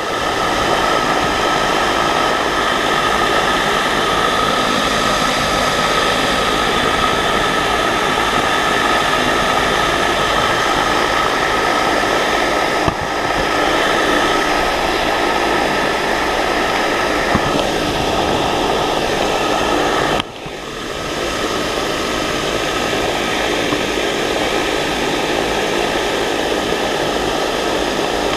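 Open-air vertical wind tunnel's large fan blowing a loud, steady rush of air up through the safety net, with a faint steady whine from the fan under the rushing. The rush drops off sharply twice, about halfway through and again about two-thirds through, and builds back within a couple of seconds.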